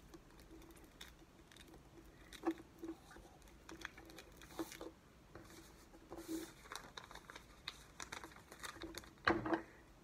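Quiet crinkling and small taps of clear plastic contact paper being handled, with a louder crinkle near the end.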